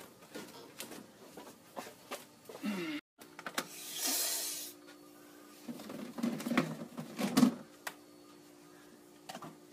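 Plastic freezer containers of corn knocking and clattering as they are handled and set into a chest freezer, with a cluster of the loudest knocks between about six and seven and a half seconds in. A steady low hum and a hiss lasting about a second come in after a cut about three seconds in.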